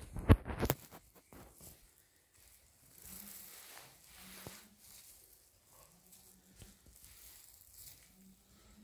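A quick run of sharp clicks and knocks in the first second, then faint shuffling and rustling: someone moving about on a terracotta tile floor while handling a phone.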